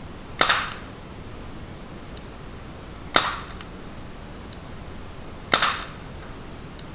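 Crosman 1077 CO2 pellet repeater firing three shots, each a sharp crack about two and a half seconds apart.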